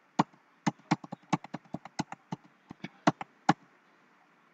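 Computer keyboard keys pressed in a quick, uneven run of about eighteen clicks, several a second, stopping about three and a half seconds in. The keys are stepping the cursor field by field through an accounting form.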